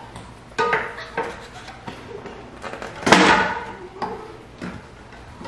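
A plastic tire lever prying the last tight stretch of a Maxxis DHR II tire's bead onto a mountain-bike rim fitted with a Cush Core insert: rubber and plastic knocking and scraping, with a louder, longer scrape about three seconds in.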